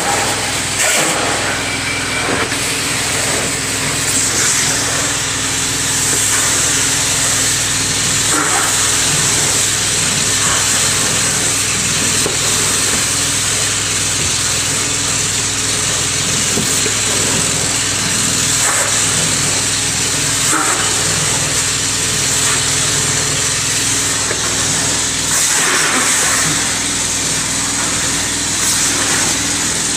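Carpet-cleaning extraction wand sucking air and water out of the carpet as it is stroked back and forth. A steady loud hiss sits over the constant hum of the extraction machine's motor.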